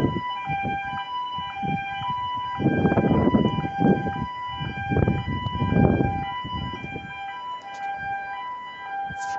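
Dam gantry crane's warning alarm sounding, a two-tone siren that keeps alternating between a higher and a lower pitch, signalling that the crane is operating. Irregular low rumbles come and go under it in the middle.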